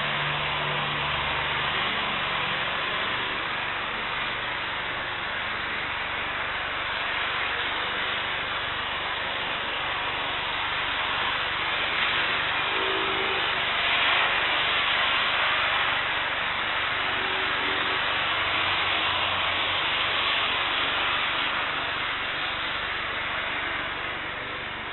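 Steady jet rush from a Boeing 747-8F freighter's four GEnx engines, with runway spray, as it rolls along a wet runway after landing. It swells about halfway through and fades near the end as the aircraft moves past.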